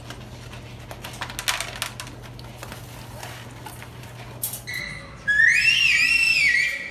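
A dog crunching dry kibble from a plastic bowl, heard as scattered light clicks. About five seconds in, a loud, high-pitched, wavering squeal lasting about a second and a half.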